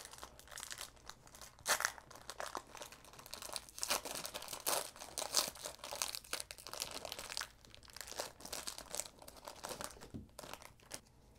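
Foil-lined trading card pack wrapper being torn open and crinkled by hand: a run of irregular crackles and tearing rustles, busiest in the middle and thinning out near the end.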